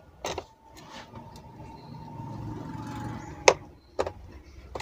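Sharp clicks and knocks of a screwdriver working the screws into a blender's plastic base, three of them, the loudest about three and a half seconds in. Under them a low hum swells and fades in the middle.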